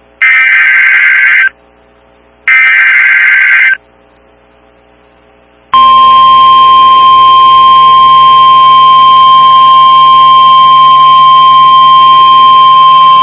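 NOAA Weather Radio emergency alert: two short bursts of buzzing SAME digital header data about a second apart, then about six seconds in the steady single-pitch 1050 Hz warning alarm tone starts and holds. The signal announces a newly issued warning.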